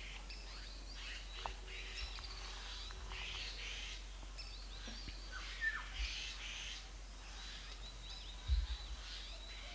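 Several forest birds calling and chirping, with short high notes overlapping throughout. A few soft low thumps come through, the loudest near the end.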